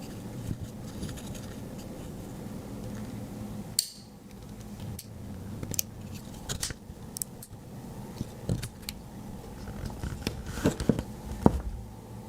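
Victorinox Swiss Army knife being handled, its metal tools giving a scattering of small, sharp clicks and taps at uneven intervals from about four seconds in.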